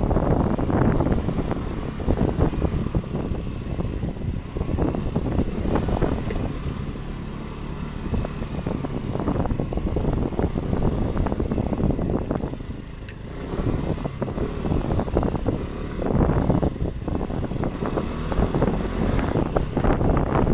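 SYM ADX 125 scooter's single-cylinder engine running at low speed on a dirt track, with wind buffeting the microphone. The sound eases off about two-thirds of the way through and picks up again.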